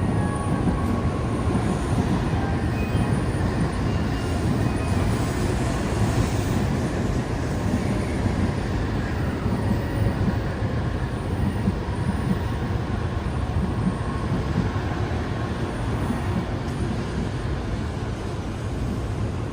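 Tokaido Shinkansen train running, a steady low rumble and rushing noise that holds even throughout.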